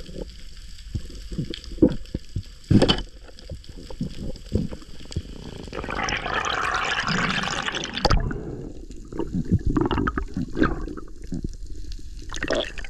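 Underwater sound around a freediver's camera: water rushing with irregular knocks and clicks as he handles a fish speared on a three-prong pole spear, and about two seconds of loud rushing, gurgling water noise starting about six seconds in.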